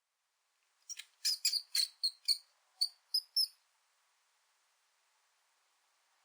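Mouse squeaking sound effect: a quick run of about ten short, high-pitched squeaks starting about a second in and stopping about halfway through.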